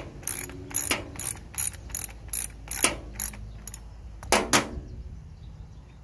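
Ratchet clicking, about three clicks a second for roughly three seconds, then two louder clicks a little past the middle.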